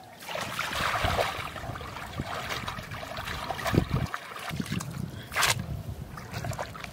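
Shallow muddy water sloshing and splashing as a bamboo plunge basket is pushed down into it and a person wades, with a sharper splash about five seconds in.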